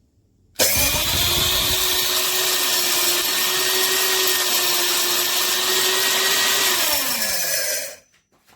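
High-speed electric grain mill grinder motor switched on, spinning up at once to a loud, steady whine. After about six seconds it is switched off and winds down, its pitch falling before it goes quiet.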